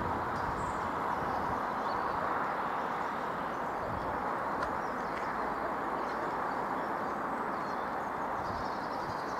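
Chiltern Railways diesel multiple unit running away along curved track, its engine and rail noise a steady hum. Birds chirp faintly now and then.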